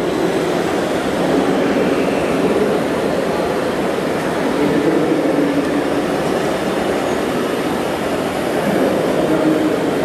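A steady rumble: a large 1:8 scale radio-controlled Caterpillar D250E articulated dump truck driving loaded down a dirt slope, over the constant noise of a busy exhibition hall.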